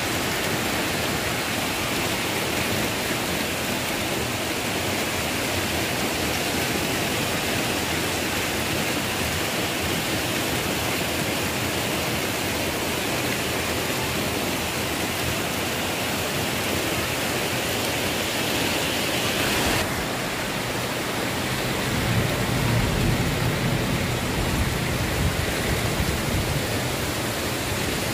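Heavy rain falling steadily, a dense even hiss. About twenty seconds in the sound abruptly turns duller, and low rumbling swells for several seconds.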